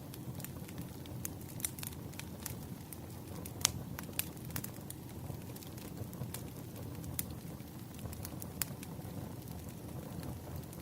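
Wood campfire burning, with irregular sharp crackles and pops over a steady low rustle of the flames; one pop about three and a half seconds in stands out as the loudest.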